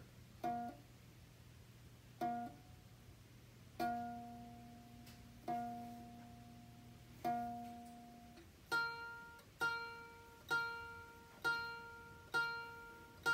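Homemade bedpan ukulele plucked in single ringing notes that imitate a Philips patient monitor's alarm tones: a few slow, lower notes spaced about one and a half to two seconds apart, then from about nine seconds in a faster run of higher notes, just under one a second.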